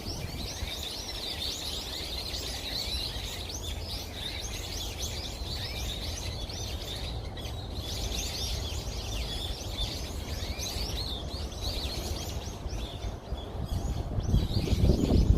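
Many small birds chirping at once, a dense run of short, quick high chirps, over a steady low rumble that grows louder near the end.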